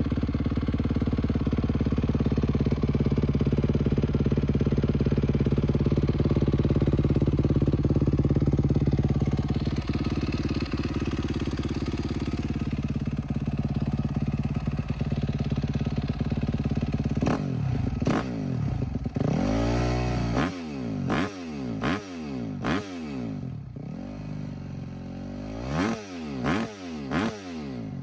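2017 Yamaha YZ250F's four-stroke single-cylinder engine running steadily. For about the last ten seconds it is revved in a string of quick throttle blips, each rising and falling in pitch.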